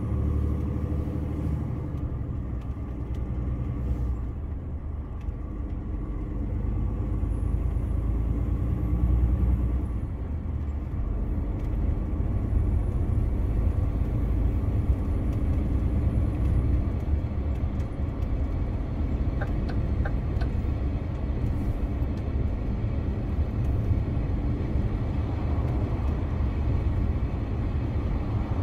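DAF CF 480 truck's PACCAR MX-13 six-cylinder diesel engine running, a steady low rumble.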